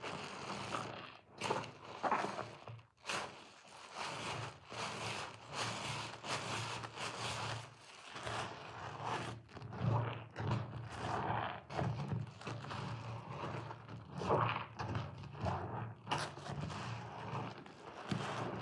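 A lather-soaked sponge being squeezed and kneaded by hand in a basin of thick white soap foam: wet squishing of foam and suds, coming in irregular surges.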